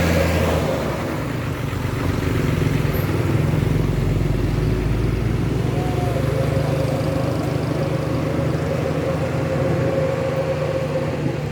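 Large bus engine running steadily in road traffic. A faint steady whine joins about halfway through.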